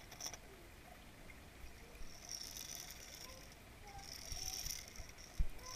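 Muffled underwater pool sound picked up through a submerged camera: a soft hiss that swells several times, faint short squeaks, and a single low knock near the end.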